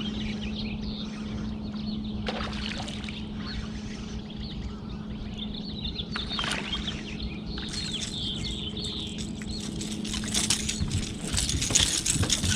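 Steady hum of a boat motor, with birds calling over it in short chirps. Near the end, a run of sharp clicks and rattles grows louder.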